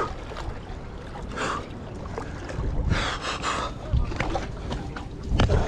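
Wind rumbling on the microphone, with brief hissing noises about a second and a half in and again around three seconds, and a couple of sharp knocks near the end.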